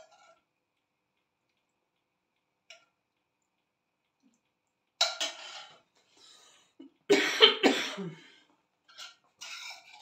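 A person coughing: one cough about halfway in, a louder run of several coughs a couple of seconds later, and short coughs near the end, with near silence before them.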